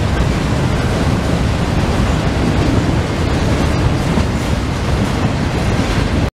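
Freight train's autorack cars rolling past, a steady rumble of steel wheels on rail with a few faint clicks. The sound cuts off suddenly near the end.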